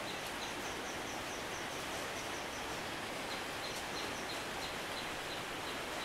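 Steady hiss of falling rain. Over it, short high chirps repeat about three times a second, with a faster, higher run of chirps in the first half.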